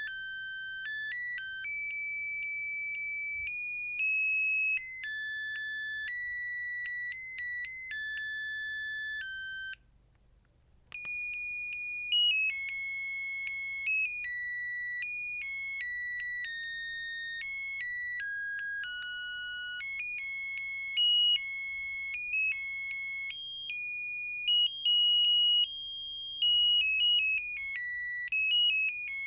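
Samsung SGH-R225 mobile phone playing its built-in ringtones: a high, beeping melody sounding one note at a time. It stops just before ten seconds in, and after about a second's pause the next ringtone melody starts.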